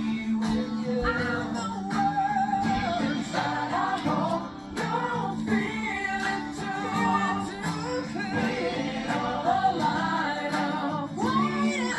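Background music: a song with sung vocals over instrumental backing and a steady beat.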